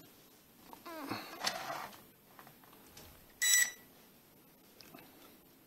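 A single short electronic beep about three and a half seconds in, from the JJRC H8C quadcopter's handheld transmitter as it is switched on to bind with the drone. Faint handling rustle comes before it.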